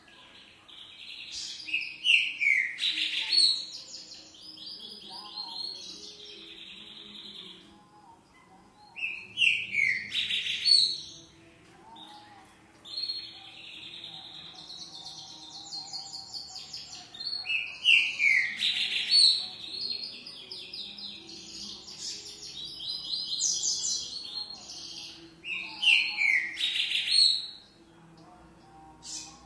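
Green-winged saltator (trinca-ferro) singing loud phrases, about six of them with short pauses in between. It is a song type unlike the usual trinca-ferro songs, one its keeper cannot name.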